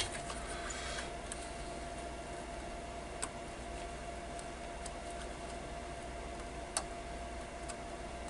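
A handful of faint, scattered clicks over a steady low hum, the loudest click coming a little before the end.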